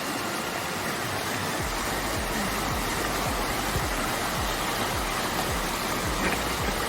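Steady rush of a waterfall's heavy flow of water, with low thuds now and then.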